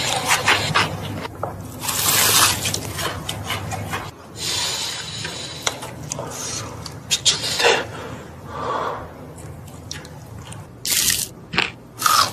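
Close-miked eating sounds: crunchy fried chicken being bitten and chewed, with irregular crackles and wet mouth sounds, and a couple of sharper bursts near the end.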